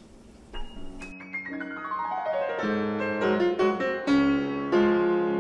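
Solo piano music: a run of notes stepping downward in pitch, then held chords struck a few times.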